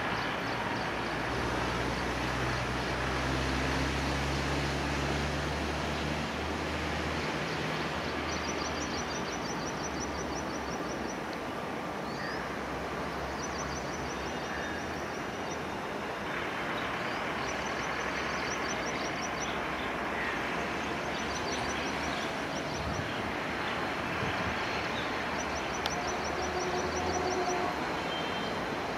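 Steady rumble and hiss of a WAP-1 electric locomotive and its passenger coaches rolling slowly around a curve. A low hum fades out after several seconds, and short rapid high-pitched ticking trills recur about every three to four seconds.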